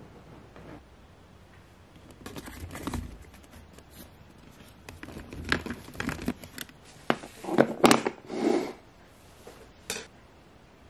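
Hands rummaging through a box of paint tubes: plastic and foil tubes crinkling and clicking against each other in irregular bursts, with a few sharper knocks, loudest about eight seconds in.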